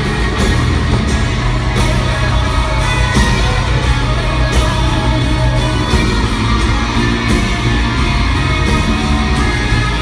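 Live country-pop concert heard from the stands of an arena: a full band playing with a woman singing, loud and heavy in the bass, with scattered shouts from the crowd.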